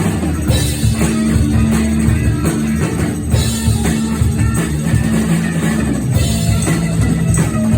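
Rock music with drums and electric guitar, playing loudly and steadily.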